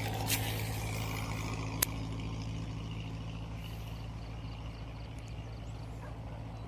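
A motor running steadily with a low, even hum, with two sharp clicks in the first two seconds.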